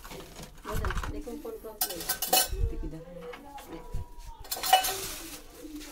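Spoons and other cutlery dropped into a hanging utensil cup on a wall rail, clinking and rattling against the cup and each other in three main clatters: about a second in, around two seconds in, and near the end.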